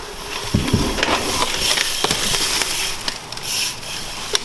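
Rustling, crackling noise with scattered sharp clicks.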